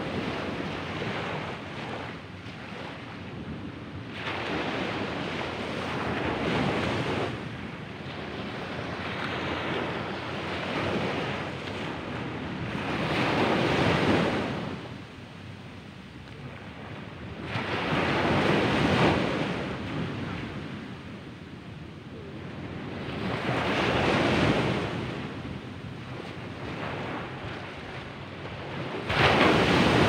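Small ocean waves breaking and washing up a sandy beach, the surf swelling and easing in surges every five seconds or so, with the biggest break near the end.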